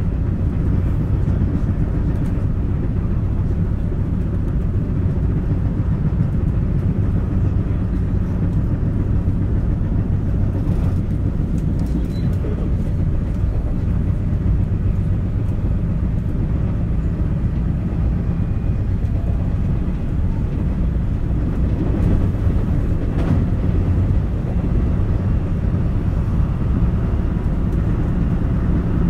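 Running noise inside a JR West 223 series electric train's motor car (KuMoHa), set W17: a steady deep rumble of wheels on rail at speed. The set is reported to make an abnormal wheel-flat noise.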